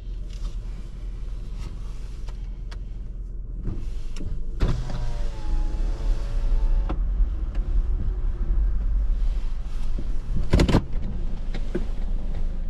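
A car's small electric motor whines for about two seconds, starting about five seconds in, its pitch sliding down and then holding, over the car's low steady hum. A short, loud noise follows near the end.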